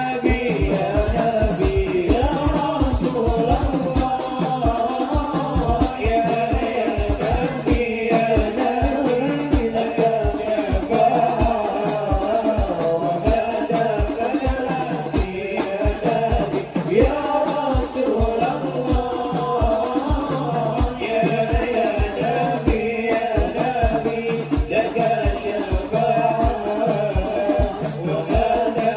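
Hadrah ensemble: several male voices singing together into microphones over a quick, steady beat of frame drums (rebana), with a rattling percussion shake in the rhythm.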